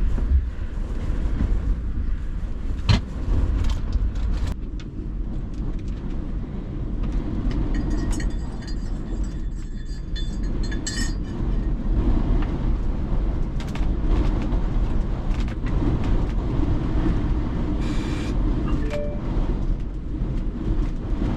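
Camper van's engine running as the van is turned round to face into a storm-force wind, with a steady low rumble throughout and a single sharp knock about three seconds in.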